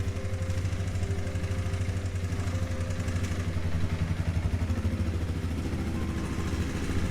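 Honda CRF300 Rally's single-cylinder engine running steadily with a fast, even pulse, just after the engine was rebuilt and reassembled.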